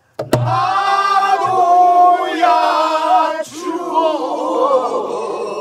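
A single stroke on a buk barrel drum, then voices singing a Korean Namdo folk song in long, wavering held notes, with men's voices among them.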